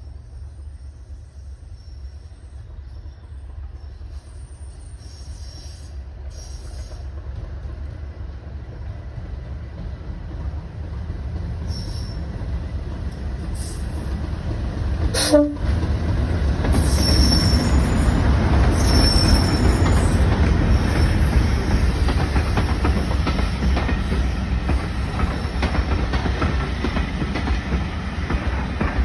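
Heritage railway train approaching and running past, growing steadily louder over the first half and then staying loud and steady. There is a brief sharp sound about halfway through, followed by a couple of short high-pitched squeals.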